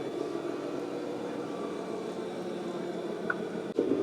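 Steady engine-like hum of radio-controlled model trucks and construction machines running, with a short high chirp about three seconds in and a brief dropout near the end.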